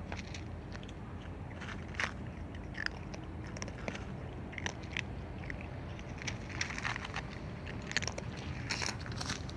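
A cat chewing and crunching its food, with irregular small crunches and bites throughout, over a steady low hum.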